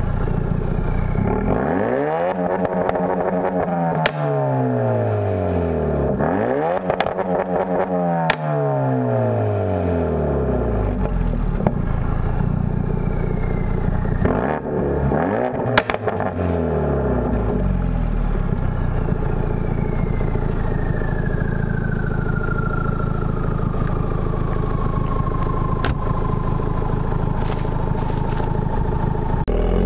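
2017 Ford Focus RS's turbocharged 2.3-litre four-cylinder heard through a Borla high-flow catted downpipe and S-Type stainless cat-back exhaust, revved three times while standing still, each rev rising and falling, with a few sharp cracks among the revs. It then idles steadily, and a thin whistle slides slowly down in pitch over the last ten seconds.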